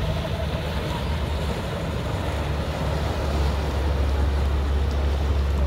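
Steady low rumble of a motorboat under way, with wind on the microphone and water noise; the rumble grows stronger about halfway through.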